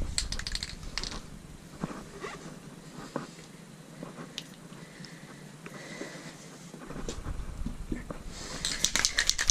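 Light footsteps and scuffs on concrete with the occasional click of a helmet being handled, over a low rumble that drops away a couple of seconds in and returns about seven seconds in.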